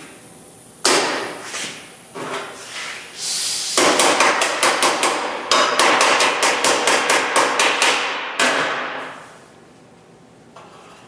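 Hammer striking steel sheet metal: a few separate blows, then a fast, even run of about four blows a second for several seconds that stops near the end.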